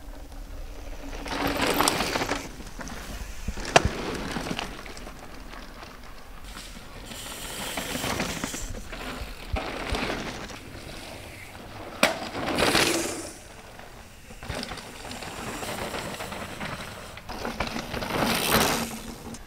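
Mountain bikes racing past on a dry, loose dirt trail: four swells of tyres skidding and scrabbling through dirt as riders pass close by, with sharp clacks of chain and frame about four seconds in and again about twelve seconds in.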